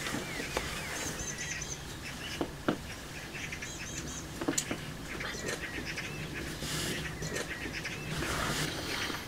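Birds calling in the garden: high, thin chirps repeated in short runs of three or four, some lower wavering calls, and a couple of brief harsh, noisy calls, with a few sharp clicks.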